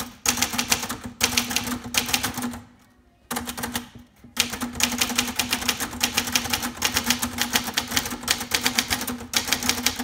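Fast typing on a 1976 Sears Achiever (Brother JP7) manual typewriter: a rapid run of key and typebar strikes, broken by a brief pause about three seconds in.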